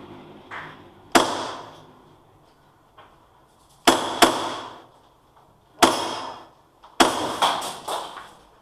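Airsoft guns firing single shots, about seven sharp cracks at uneven gaps, two of them close together around four seconds in, each trailing off in an echo.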